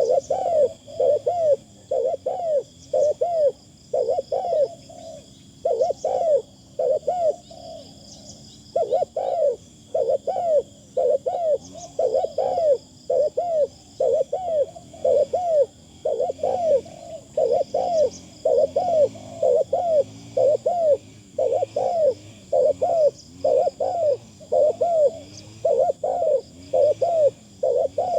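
Spotted dove cooing over and over, a steady run of short coos at about two a second with one brief pause about a quarter of the way through.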